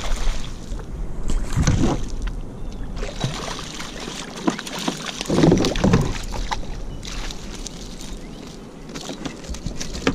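Hooked speckled trout splashing at the water's surface beside a kayak as it is brought in and netted, with water sloshing around the hull. The splashing comes in irregular bursts, loudest about two seconds in and again about halfway through.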